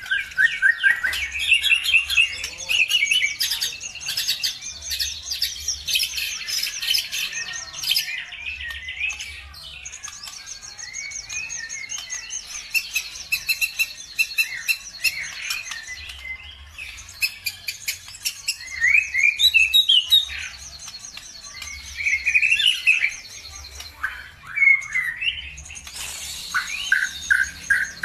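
Songbird song played as a lure to make caged birds sing: long phrases of fast trilled chirps and repeated high notes, with short breaks between phrases.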